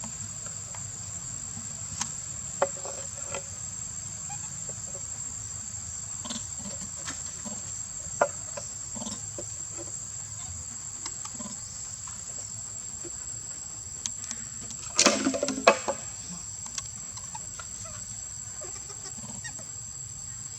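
Insects, crickets or similar, chirring in a steady high-pitched drone, with scattered clicks and a short loud clatter of knocks about fifteen seconds in.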